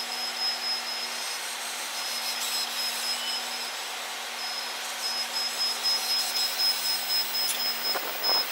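Scale autonomous rally car running laps on a dirt oval: a steady whirring with a high whine that cuts in and out and a pulsing loudness in the second half.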